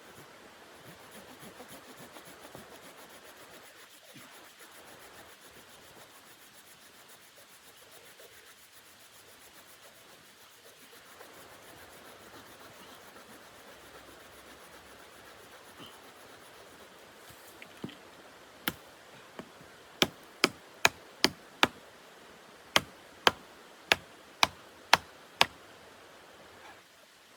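Rubbing and scraping, then a run of about a dozen sharp knocks, roughly two a second, in the last third.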